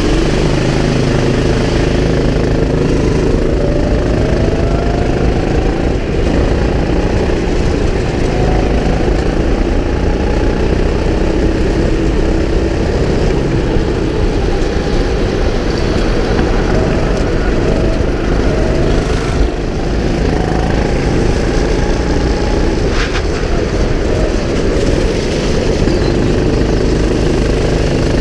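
Go-kart engine heard close up from on board, running hard under way, its note rising and falling over and over as the kart speeds up and slows.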